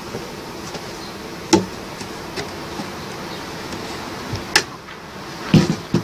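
A few sharp knocks and clicks as the aluminium strip and the wooden hive box are handled: one about a second and a half in, then several close together near the end, over a steady background hiss.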